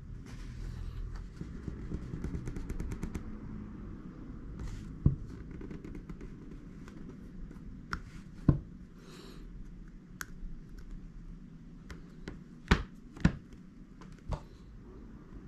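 Pen-style hobby knife cutting into a soft rubber eraser-carving block on a wooden table: faint scratchy cutting with scattered sharp clicks and taps, the loudest a close pair near the end.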